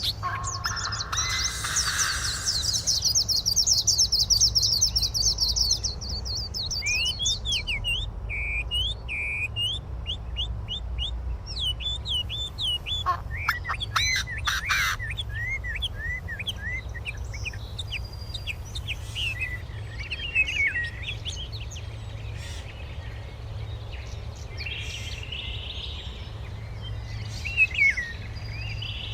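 Birds singing: a fast, high trill for the first several seconds, then a string of short chirps that slide up and down in pitch, over a steady low rumble.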